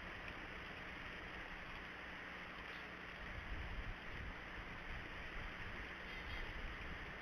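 Steady outdoor hiss with a low wind rumble on the microphone, and two faint, short, high chirps, about three and six seconds in.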